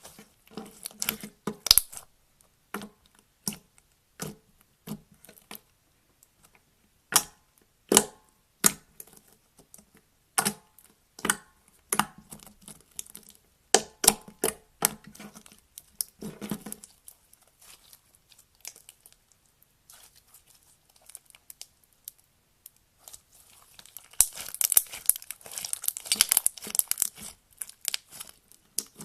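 Hands playing with slime: irregular sharp pops and clicks, as when slime is poked, stretched and squeezed, with a dense burst of crackling about two-thirds of the way through.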